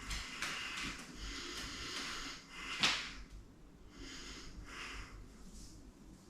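A person breathing hard in a string of forceful, noisy breaths, with one sharp, loud exhale about three seconds in.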